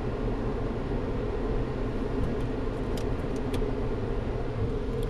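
Steady low rumble heard from inside a car's cabin: the car's engine running, with the automatic car wash's brush machinery working behind it, muffled through the closed windows. A few faint ticks come around the middle.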